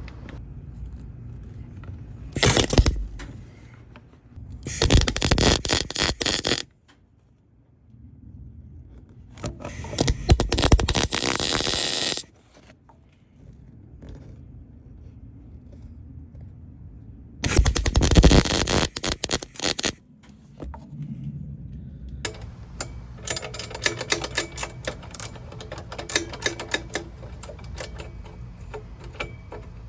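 Four short bursts of arc welding, each a loud crackle lasting one to three seconds, as tack welds go onto a cracked exhaust muffler flange. They are followed by a quieter run of light ticking and clatter.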